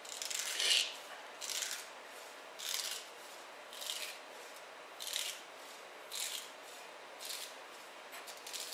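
Kitchen knife chopping celery on a plastic cutting board: a crisp crunch of the knife through the stalk and onto the board about once a second, with a few quicker, lighter cuts near the end.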